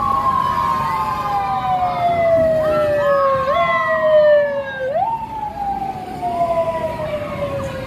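Several vehicle sirens sounding together from a passing convoy. Their pitch slides slowly downward, then jumps back up and slides down again, over the low hum of vehicles going by.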